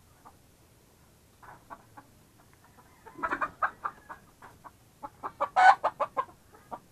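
Chickens clucking in two quick runs of short calls, the second louder and peaking about five and a half seconds in: the flock is stirred up by someone trying to catch one of them.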